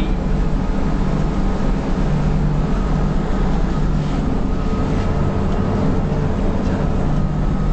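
Bus engine and road noise heard inside the passenger cabin: a steady low drone with a faint, steady high whine above it.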